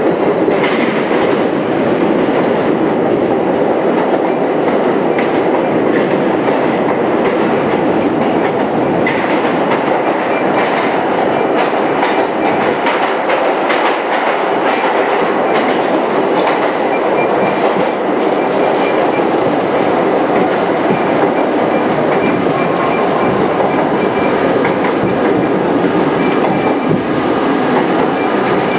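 An R32 New York City subway train running through a tunnel, heard from inside its front car: a steady rumble of wheels on rail with frequent clicks over the rail joints. A thin high whine joins in over the last several seconds.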